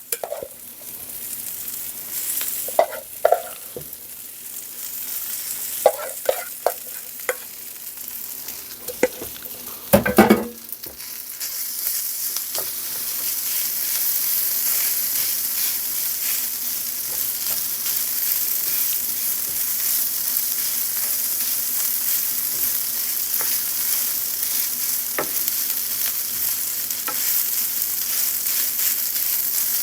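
Rice frying in a pan and being stirred: a spatula knocks against the pan several times, with a louder clatter about ten seconds in, then a steady sizzle that grows louder and holds.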